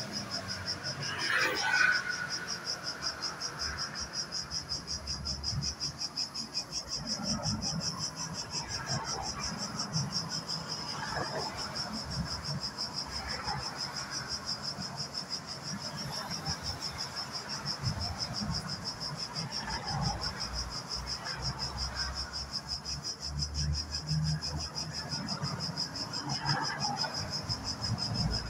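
Insects trilling steadily in a high, fast-pulsed chirring, with faint low rumbles and a few scattered soft sounds, one louder about two seconds in.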